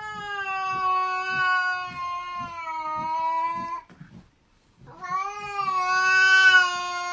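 A cat yowling in two long, drawn-out calls, each held at a nearly steady pitch for three to four seconds, with a break of about a second between them.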